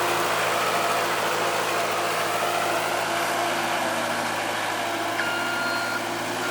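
ASV RT-60 compact track loader's diesel engine running steadily under throttle while pushing snow. A thin, steady whine joins about five seconds in.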